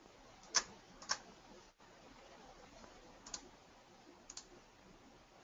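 Computer mouse clicking: two sharp clicks about half a second apart, starting about half a second in, another a little past three seconds, then a quick double click near four seconds.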